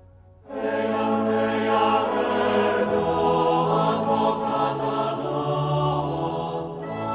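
Soundtrack music: a choir singing long held, chant-like notes, coming in suddenly about half a second in.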